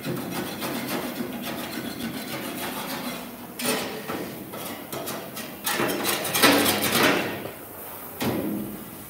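Hands scraping and knocking on a sheet-steel car body panel: quick scratchy rubbing for the first few seconds, then louder bursts of metallic clatter in the second half.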